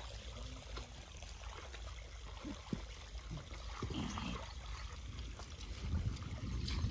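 Muddy water trickling and sloshing under feet wading through a mud puddle, with small splashes, over a steady low rumble.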